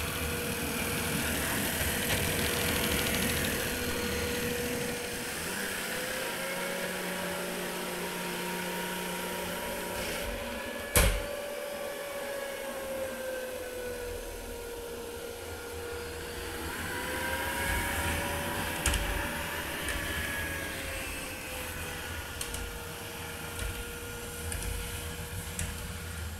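Vorwerk Kobold VK7 cordless vacuum cleaner running, its motor hum drifting slowly up and down in pitch. A sharp knock comes about eleven seconds in, and a lighter one later.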